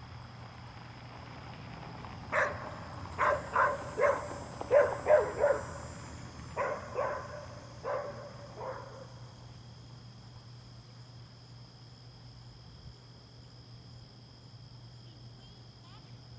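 A dog barking, about ten short barks in uneven bursts over some six seconds, then falling quiet.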